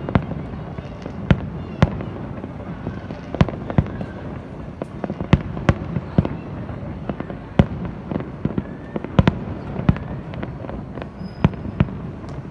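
Fireworks exploding: irregular sharp bangs and pops, some louder and closer than others, over a continuous rumble of more distant bursts.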